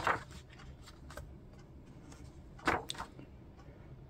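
Pages of a large A4 paperback book being turned by hand: a swish of paper right at the start, then two short paper rustles close together near the three-second mark.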